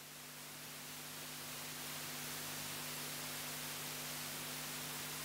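Steady electrical hiss with a low mains hum from the sound or recording chain, growing slightly louder over the first couple of seconds and then holding level.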